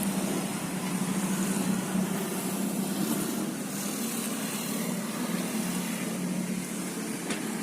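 Circular sawmill running with a steady machine hum and noise, no clear change in load.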